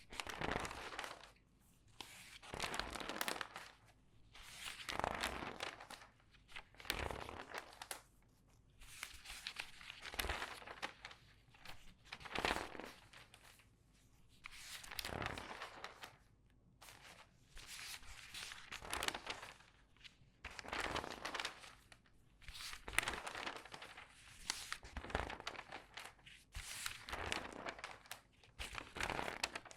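Newspaper pages turned quickly one after another: each turn is a crinkling rustle of the large sheets, about one every two seconds with short quiet gaps between.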